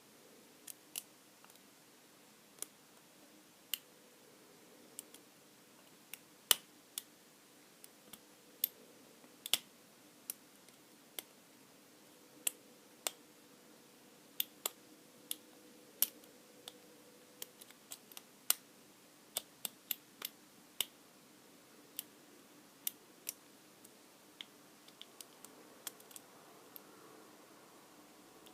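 Lock pick working the pin stack of a Brady Abus 32.5 mm lockout padlock: sharp, irregular metallic clicks, about one or two a second and uneven in loudness, as pins are lifted and set under tension. The lock stays shut.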